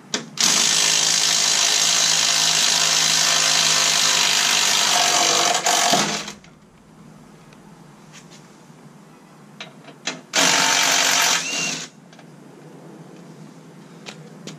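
Cordless impact driver with a T55 Torx socket hammering bumper bolts loose and backing them out: one long run of about six seconds, then a short second run of about a second and a half.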